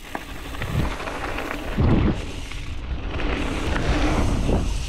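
Mountain bike rolling down a dirt jump line: wind rushes over the microphone and the tyres rumble, growing louder as the bike picks up speed, with a few low thuds along the way.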